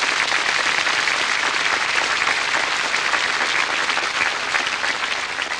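Crowd applauding: a long, steady round of clapping that begins to die away near the end.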